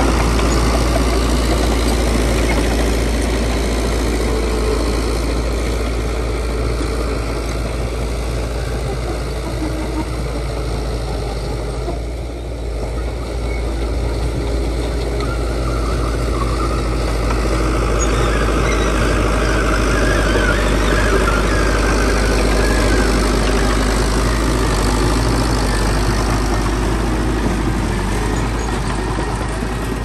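Heavy diesel construction-machine engine running steadily. It eases off briefly about twelve seconds in, then picks up again.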